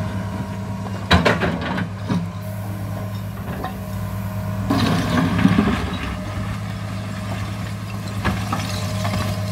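New Holland E245 excavator's diesel engine running steadily, with sharp knocks of the bucket on rubble about a second in and again near the end. Around the middle comes a rush of brick and concrete debris tipped from the bucket into the dump truck's bed.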